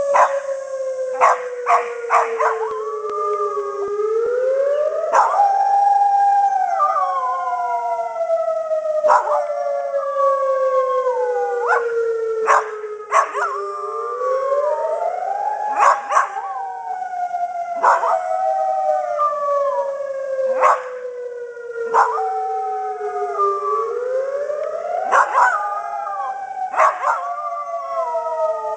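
A civil defence siren on its monthly test, rising in pitch over about a second and then falling slowly, three times over. A Pembroke Welsh Corgi howls along with wavering cries. Frequent short, sharp sounds cut through it.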